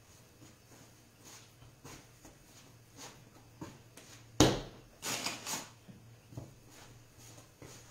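Dough being kneaded by hand on a wooden board: soft pressing and rubbing, with one louder thump on the board about halfway through, followed by a few brief scraping rustles.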